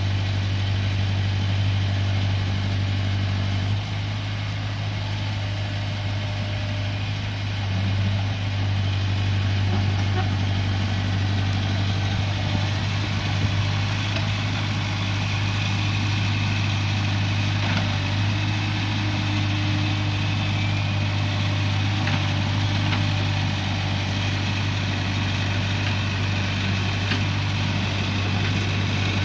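JCB 3CX backhoe loader's diesel engine running steadily with a deep, even drone, with a few faint ticks over it.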